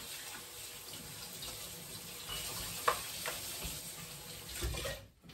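Kitchen sink tap running as an eggshell is rinsed out under it, with a couple of light knocks about three seconds in; the water stops near the end.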